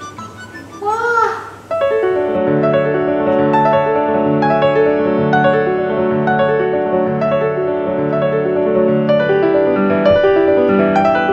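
Background piano music, a steady flow of notes from about two seconds in. It is preceded by a short tone that rises and then falls about a second in.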